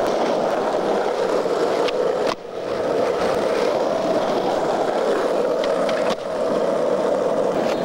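Skateboard wheels rolling over rough asphalt: a steady rolling rumble. It breaks off and resumes twice, about two and a half and six seconds in.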